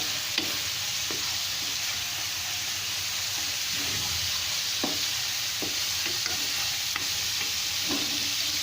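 Rui fish pieces and spices frying in olive oil in a kadai, sizzling steadily, with a few scattered taps and scrapes of a spoon stirring the pan.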